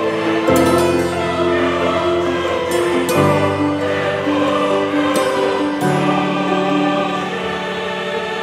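Background music with choir-like singing: slow, sustained chords that change about every three seconds.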